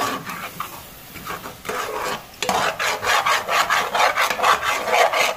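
Metal slotted spoon stirring and scraping thick carrot halwa (gajar ka halwa) against the bottom of a pan, a rasping scrape with each stroke. It is quieter for the first two seconds, then turns into quick continuous scraping strokes. This is the bhunai stage: the halwa is being roasted in ghee and stirred without pause so it does not stick to the bottom.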